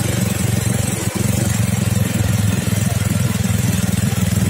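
ATV (quad bike) engine running steadily as it is ridden across the sand.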